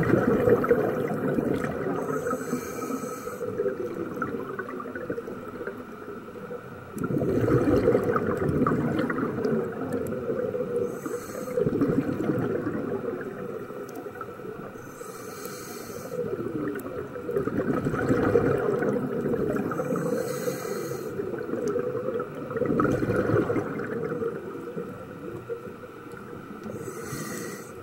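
Scuba diver breathing through a regulator underwater, about five breaths. Each breath is a short hissing inhale followed by a longer bubbling rush of exhaled air.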